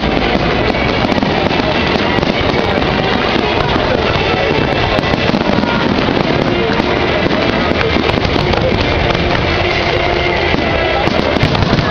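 Fireworks going off without a break: a dense, continuous crackle of many small bursts, with music playing underneath.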